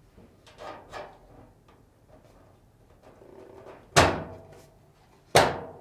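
Sheet-metal upper frame plate of a Samsung dryer being fitted: light scrapes and taps, then two loud metal clunks about a second and a half apart, each ringing briefly, as the plate seats into place.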